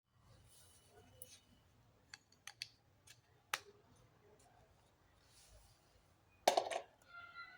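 Handling noises: scattered light clicks and taps, then a louder clatter about six and a half seconds in.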